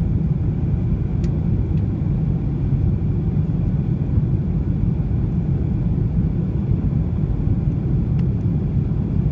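Steady low rumble of a Boeing 737-700 jet airliner during its landing, even throughout, with a few faint clicks.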